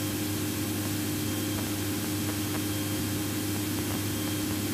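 Cabin drone of a twin-engine piston airplane's engines and propellers running steadily at climb power, an even hum with a steady tone over a constant hiss.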